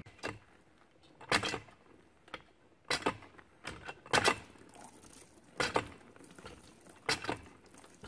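Campground well hand pump being worked: a metallic clank with each stroke of the handle, about one every second and a half, six in all, as water is drawn.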